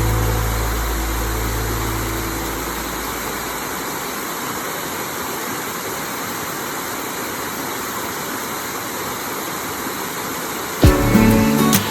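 Steady, even rush of a waterfall. A low held music note fades out over the first few seconds, and guitar music starts suddenly near the end.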